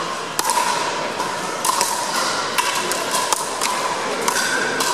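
Pickleball paddles striking a plastic pickleball in a rally, a string of sharp pops spaced irregularly, echoing in a gymnasium.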